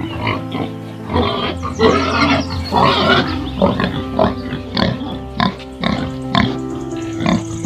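Pig grunting close up, over background music.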